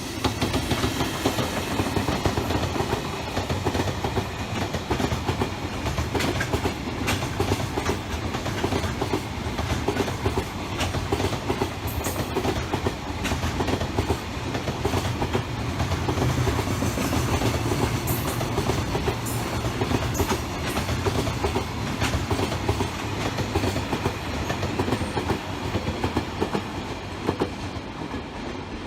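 A train running past on the line, its wheels clattering steadily over rail joints throughout, easing off slightly near the end.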